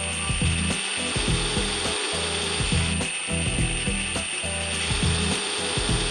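Metal lathe running with a steady high-pitched whine as it spins a threaded steel part.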